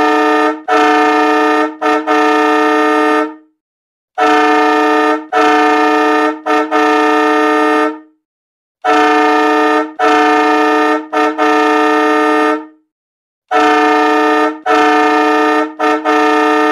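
A loud two-pitch train horn sounding a fixed pattern of toots (two longer, two quick, then one long), repeated four times with identical timing and dead silence between the groups, a looped sound effect.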